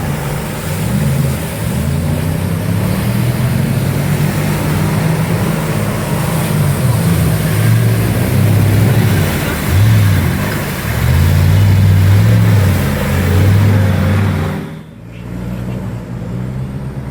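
Off-road vehicle engine revving hard, its pitch rising and falling as the throttle is worked. It drops off sharply for a moment about fifteen seconds in, then picks up again at a lower level.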